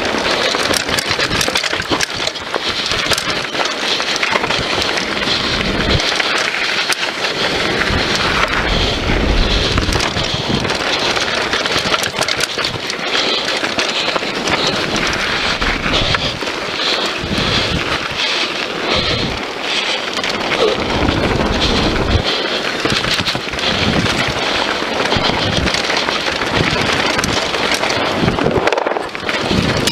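Scott Voltage FR 730 mountain bike running fast down a dirt trail: tyres on loose dirt and stones, with the bike rattling in many small knocks over the bumps. Wind buffets the action camera's microphone in repeated low surges.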